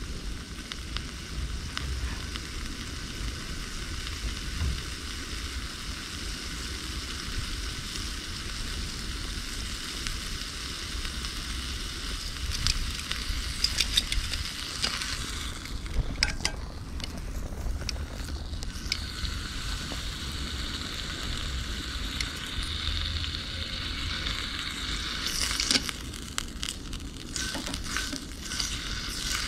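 Steak sizzling steadily in a seasoned cast iron skillet, with a few sharp clicks about halfway through and again near the end.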